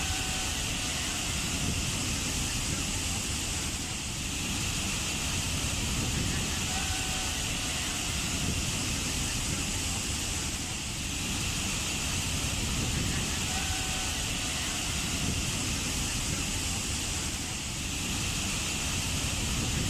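Waterfall rushing in a steady, dense roar of falling water, easing slightly about every seven seconds.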